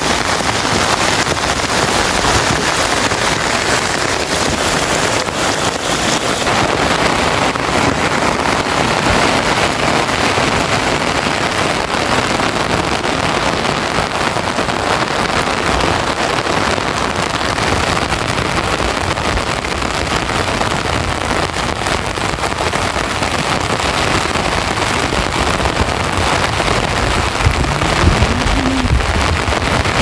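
Heavy rain pouring down in a steady, dense hiss. A low rumble joins near the end.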